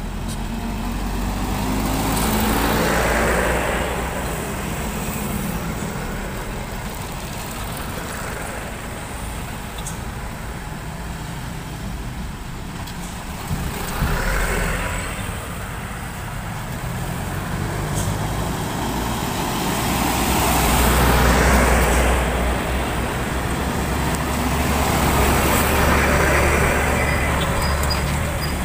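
Diesel trucks and a car driving slowly past one after another, their engine noise swelling and fading with each pass-by.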